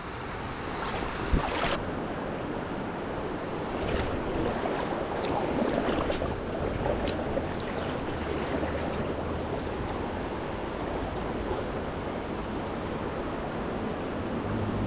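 Steady rush of flowing river water, with a few light clicks in the first half.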